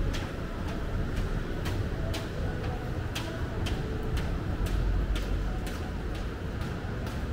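Footsteps at a steady walking pace on wet pavement, about two sharp clicks a second, over a low, steady rumble.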